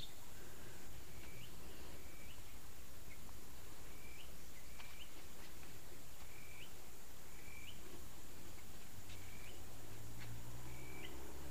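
A bird repeating a short chirp with an upward flick, about once a second, over a steady outdoor hiss. A faint low hum comes in about nine seconds in.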